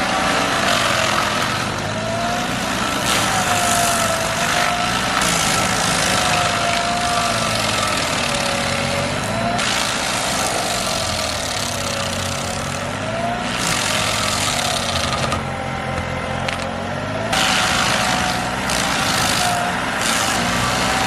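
Heavy forestry machine's engine running under work, its pitch rising and falling as the load changes, with several noisy bursts of a second or more over it.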